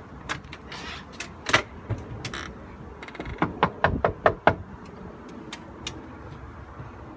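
Knocking on a front door: a quick run of about seven sharp raps in the middle, with a few scattered clicks and a thud before it.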